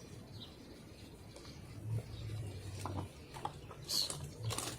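Faint handling noises of makeup being worked with: a few small clicks, then two short brushing rubs near the end, over a low steady hum.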